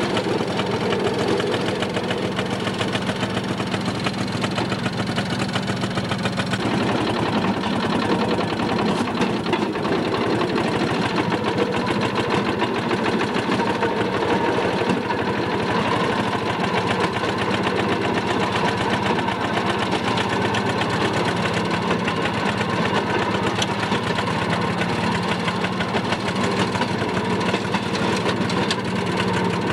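Railroad motorcar's small engine running steadily with a fast, even clatter, heard from inside the car's cab. The engine note changes about six or seven seconds in.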